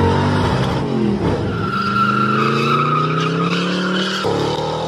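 A car engine running at high revs, its pitch sweeping up and down, with a steady tire squeal lasting about two seconds from a little before two seconds in: tires spinning under hard acceleration.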